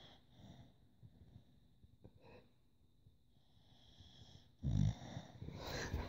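Staffordshire bull terrier in deep sleep, snoring and wheezing faintly with a soft snore every second or so. Near the end there is a loud low thump and rustling as the phone filming her is moved.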